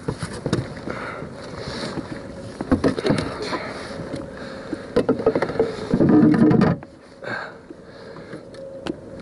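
Knocks, clicks and scrapes of gear and feet moving about on a small fibreglass boat deck, with one louder, longer noise about six seconds in.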